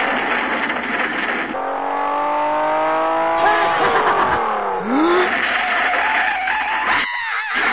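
Racing-car engine sounds revving up and falling back in pitch, several times over, with tyre-squeal screeches.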